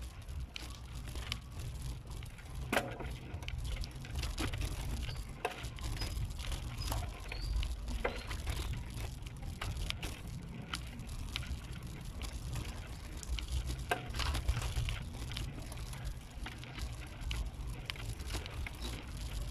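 Steady low rumble of wind and handling noise on a handheld camera microphone while moving along a road, with scattered light clicks and ticks.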